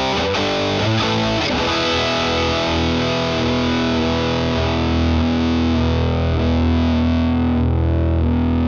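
Gretsch hollow-body electric guitar played through an amplifier's distortion channel, boosted by an EarthQuaker Devices Westwood overdrive set as a treble booster: heavily distorted metal-style playing with long sustaining notes, one held note ringing on near the end.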